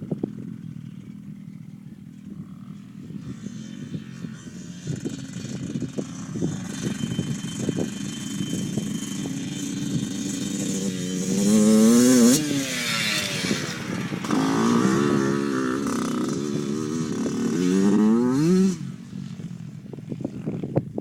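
Dirt bike engines revving as the bikes ride by. The engine note climbs to its loudest about twelve seconds in and falls away, then rises and falls again before cutting off suddenly near the end.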